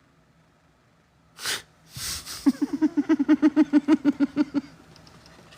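A man laughing: a sharp snort of breath about a second and a half in, then a quick run of short laughs for about two seconds that trails off.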